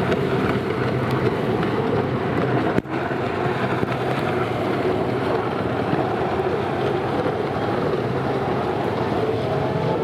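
Racing stand-up jet ski engines running hard across the water in a steady, continuous drone. The sound breaks off for a split second just under three seconds in.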